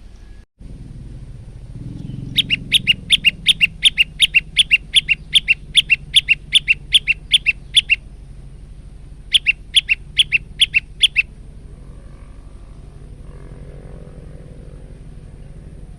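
Male prenjak lumut (a prinia) singing its rapid repeated chirping song, about four sharp notes a second, in two runs: a long one starting about two seconds in and a shorter one about ten seconds in.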